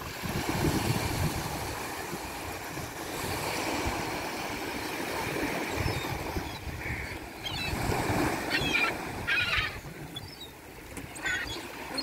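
Gulls giving a string of short, harsh calls over the sea, starting about halfway through, over a steady wash of surf and wind rumble on the microphone.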